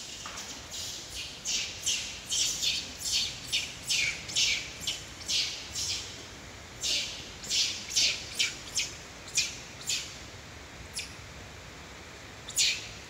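A rapid series of short, high, harsh chirping calls, about two or three a second. They come in two runs with a short break in the middle, and a few more near the end.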